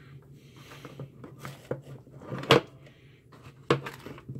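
Handling noise: plastic clicks and knocks as a handheld digital multimeter and its test leads are picked up and turned over. A few light clicks come first, the loudest knock about halfway through and another sharp one near the end.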